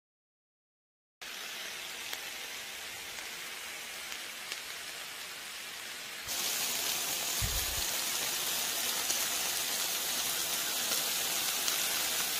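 Chicken and green-onion skewers sizzling on a grill pan: after about a second of silence, a steady hiss that gets louder about six seconds in. A brief low thump comes in the middle.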